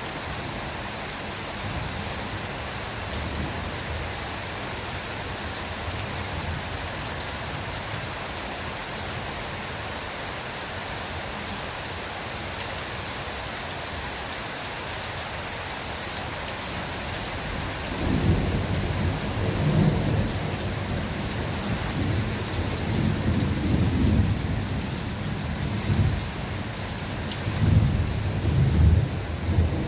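Steady rain falling in a forest. After about eighteen seconds, thunder joins it as a low, rolling rumble that swells in several louder peaks.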